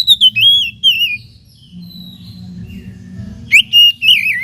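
Oriental magpie-robin (kacer) singing: loud whistled phrases of quick notes that slide up and down, a burst at the start and another about three and a half seconds in, with a softer phrase between.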